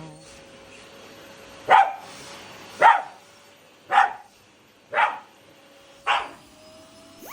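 A dog barking five times, about once a second, each bark short and sharp.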